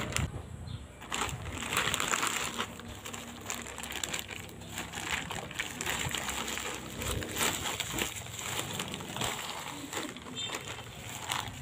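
Plastic poly mailer bag rustling and crinkling as it is cut with a box cutter and torn open by hand, then peeled back off a bubble-wrapped package, in an irregular run of crackles.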